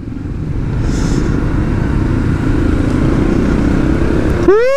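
Motorcycle running steadily on the road, a constant low engine and road rumble. Near the end a short pitched call cuts in, rising then falling in pitch twice.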